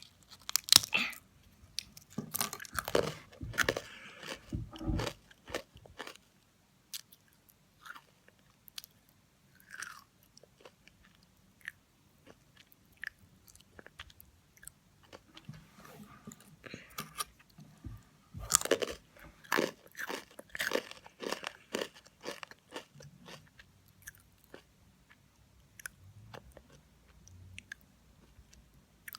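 Crisp fortune cookie being bitten and chewed close to the microphone, a dense run of loud crunches at the start, then sparser, quieter chewing, and another burst of loud crunching a little past the middle.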